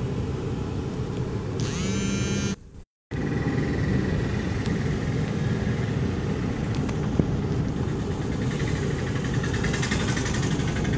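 Steady low rumble of a car's engine, heard from inside the cabin. The sound cuts out briefly about three seconds in, and there is a single sharp click about seven seconds in.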